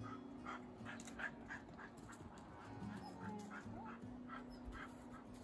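A dog panting in quick, even breaths, about two to three a second, over soft background music with held notes.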